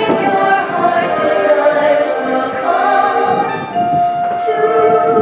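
Orchestral fireworks-show soundtrack with voices singing held, sustained notes, and a single high note taken up and held near the end.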